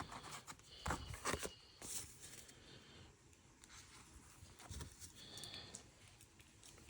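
Faint handling of Pokémon trading cards: a few soft clicks and slides of card stock, with quiet stretches between.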